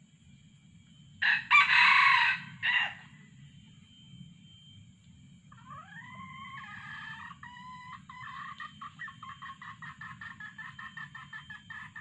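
Red junglefowl rooster crowing once, a short harsh crow about a second in. From about six seconds in, a rapid, even run of hen clucks, about five notes a second: the recorded female call played to lure wild roosters to the decoy.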